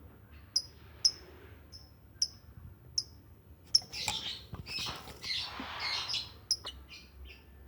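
Lovebirds chirping: short, sharp, high calls about once a second, getting busier with more overlapping calls and some rustling noise over the second half.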